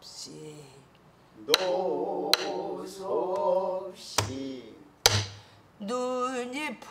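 A woman singing pansori in long, wavering held notes, accompanying herself on a buk barrel drum. A few sharp drumstick strokes and two deeper thuds on the drum mark the beat, with short gaps between sung phrases.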